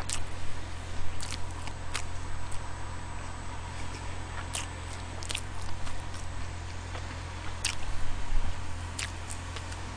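Close-miked chewing, with scattered sharp mouth clicks about once a second or so, over a steady low electrical hum.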